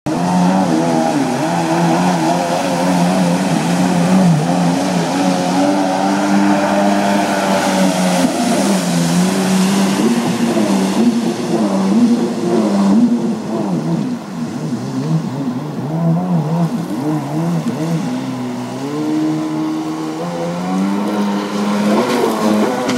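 1990 Yamaha SuperJet 650 stand-up jet ski's two-stroke twin engine running hard, its pitch rising and falling as the throttle changes through turns. It eases off about two-thirds of the way through and picks up again near the end.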